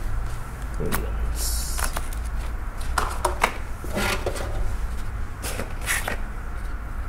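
Plastic deli containers being handled and set down on a wooden cutting board: scattered light knocks and clatters, with a brief rustle about a second and a half in, over a steady low hum.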